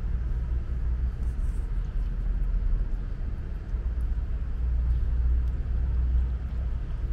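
A steady low rumble, with a few faint soft ticks of a cat chewing wet food from a plastic bowl.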